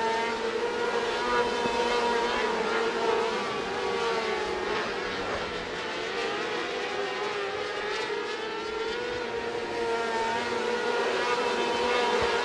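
A pack of 600cc micro midget sprint cars racing on a dirt oval, their motorcycle engines held high in the revs in a steady, slightly wavering whine.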